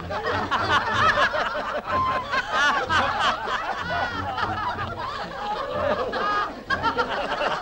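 A group of men laughing and snickering together, many voices overlapping: mocking laughter at a boast that a mile can be covered in about 12 seconds.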